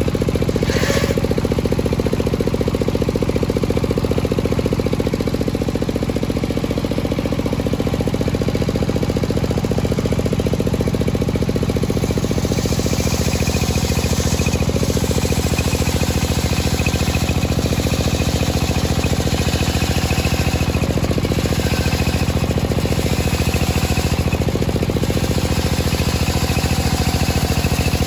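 Homemade traveling circular saw ripping lengthwise through a teak beam, its drive running steadily with a fast, even low pulse and the blade's cutting noise over it.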